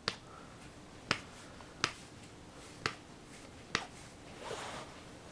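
Five sharp clicks, about a second apart, like finger snaps.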